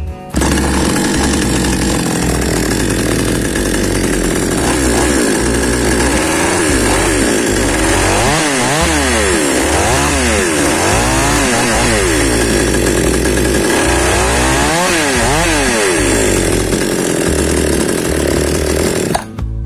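Maestro 6500L two-stroke chainsaw running, its engine revved up and down several times in the second half and dropping back to idle in between. It is running normally again now that its flooded spark plug has been replaced with a spare.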